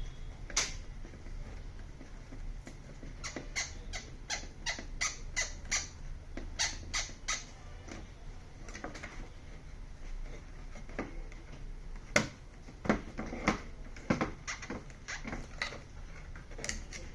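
Irregular light clicks and taps of small screws, a screwdriver and plastic TV parts being handled during speaker replacement.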